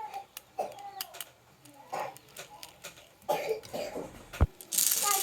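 Toy vehicles clicking and clacking on a wooden HABA marble-run slope: scattered light knocks, one sharp knock near the end, then a steady rolling rattle as they run down the track.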